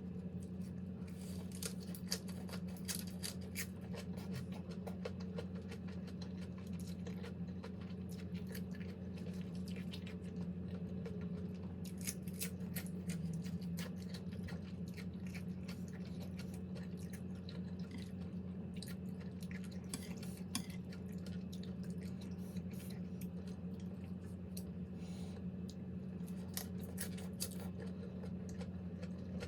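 Close-up chewing and mouth sounds of a person eating a pounded seafood salad, with scattered small wet clicks and crunches. A steady low hum runs underneath.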